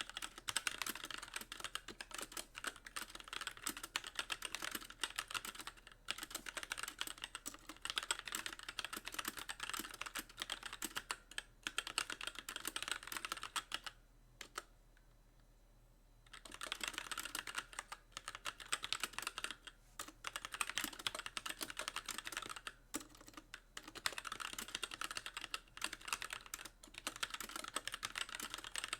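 Fast, steady typing on a Magicforce mechanical keyboard with light linear Gateron Clear switches and stock keycaps, each key bottoming out with a click. The typing stops for about two seconds around the middle, then picks up again.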